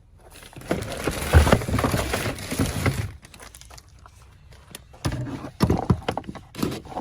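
Irregular clattering and knocking of hands working tools and parts: a dense run of rattling clicks lasting about two seconds, then a pause, then a few separate knocks near the end.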